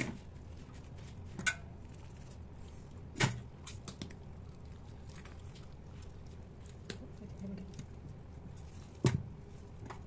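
A handful of sharp knocks and clicks at uneven intervals as a whole raw chicken and a kitchen knife are handled against a stainless steel sink, over a low steady hum.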